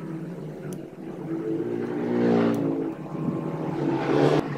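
A motor engine running steadily, swelling louder about two seconds in and again near the end, with a few faint clicks.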